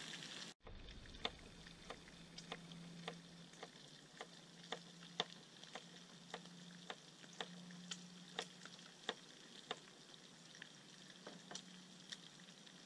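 Kitchen knife slicing a carrot into thin half-rings on a cutting board: a sharp tap about twice a second as the blade meets the board. Meat frying in the pot sizzles faintly underneath.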